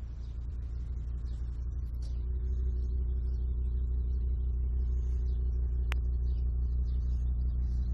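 Volkswagen Golf's V5 engine (AGZ) with its stock exhaust idling steadily, a deep even drone that grows a little louder over the first two seconds. A single sharp tick sounds about six seconds in.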